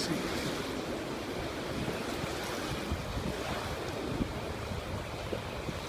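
Sea waves washing in on the beach, a steady rushing of surf, with wind buffeting the microphone.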